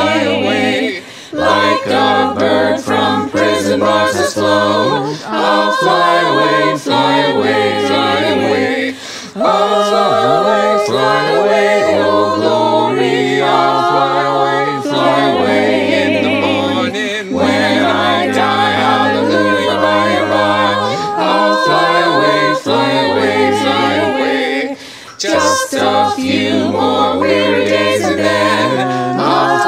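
Unaccompanied choir singing in held phrases, with short pauses between them.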